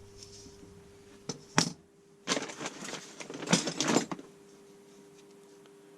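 Tools being handled: a couple of sharp clicks, then about two seconds of close clicking, knocking and rattling as metal items are moved and set down.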